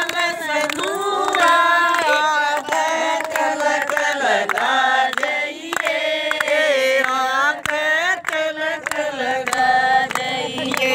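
A group of women singing a Hindu devotional bhajan together in unison, clapping their hands along to the song.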